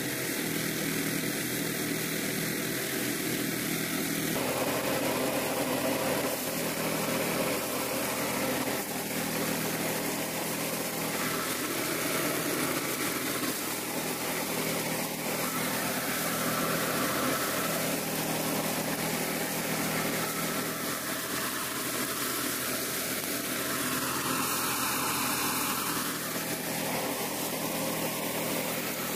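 Small single-cylinder gasoline engine running steadily, driving a drum rice thresher as bundles of rice stalks are fed into the spinning drum.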